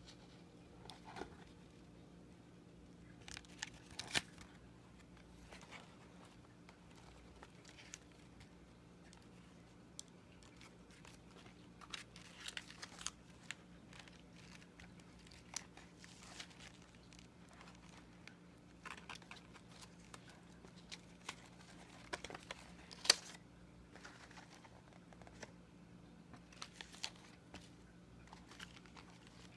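Paper and card being handled: faint crinkling and tearing with scattered small taps, over a faint steady hum.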